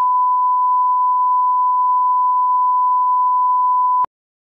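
Broadcast line-up tone: a steady 1 kHz sine tone played with colour bars at the head of a programme tape as the audio level reference. It cuts off suddenly about four seconds in.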